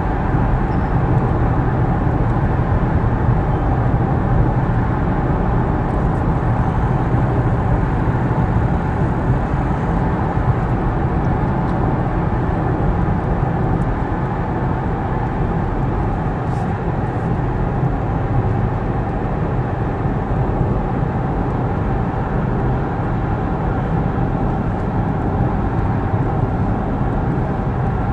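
Steady road and engine noise inside a Ford Mustang's cabin as it cruises at highway speed.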